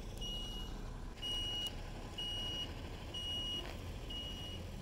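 Reversing alarm of a city bus backing up: a high beep about half a second long, repeated about once a second, five times, over the low running of the bus's engine.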